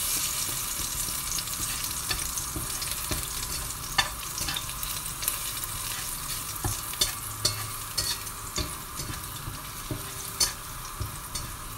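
Garlic sizzling in a little hot oil in a stainless-steel wok, stirred with a metal slotted spatula that clicks and scrapes against the pan now and then. The garlic is frying until it turns lightly brown.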